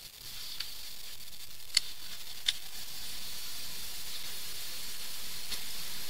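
Faint steady hiss that slowly grows louder, with a few soft, separate ticks of a stylus writing on a touchscreen whiteboard.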